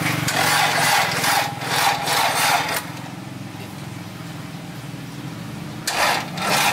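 Starter motor cranking a freshly swapped Honda engine (H22 head on an F20B block) without it catching: one cranking burst of about three seconds at the start and a second one near the end, with a steady low hum in between.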